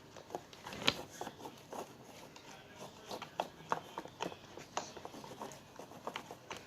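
Slime mixture being stirred in a bowl with one hand: scattered, irregular light clicks and taps.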